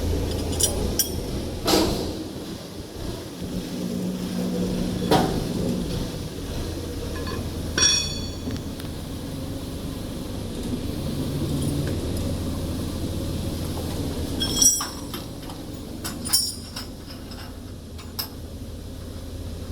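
Metal parts and tools clinking and knocking while a band saw log-cutting machine is being assembled and levelled: several separate sharp clinks, a couple of them ringing, over a steady low hum.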